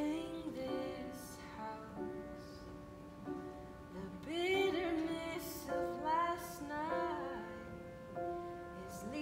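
A woman singing a slow, gentle melody in short phrases, accompanied by an upright piano.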